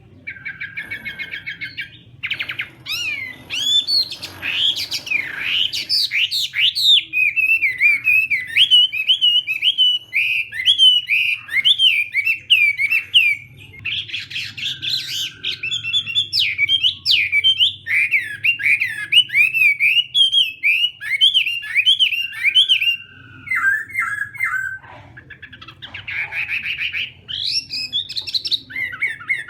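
Chinese hwamei singing a long, varied song of rapid whistled phrases, with harsh grating notes mixed in, almost without pause.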